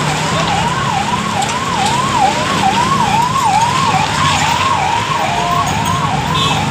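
Vehicle siren in a fast yelp, its pitch sweeping up and down a little over twice a second, over the low hum of passing car and motorcycle engines.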